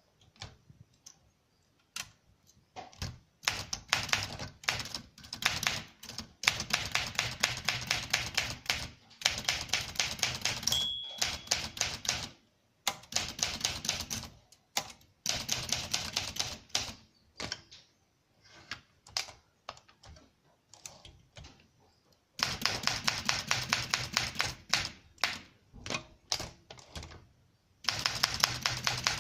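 Typing on a 1964 Olympia SM9 manual portable typewriter: runs of rapid keystrokes lasting a second or more, broken by short pauses. One short ringing tone sounds about eleven seconds in.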